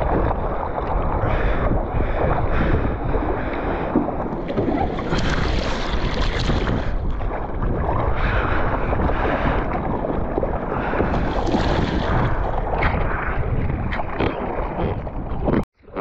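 Rushing, splashing seawater and breaking surf with wind blowing on the microphone, swelling louder twice. It breaks off abruptly for a moment near the end.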